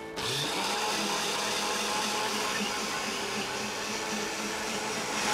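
High-speed countertop blender switched on, its motor spinning up within a fraction of a second and then running steadily with its glass jar full of motor oil.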